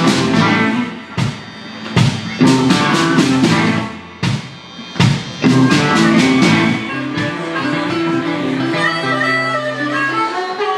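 Live electric blues band playing, with guitars, bass and drums. For the first five seconds the band plays sharp stop-time hits with short gaps between them, then settles into sustained guitar and bass lines.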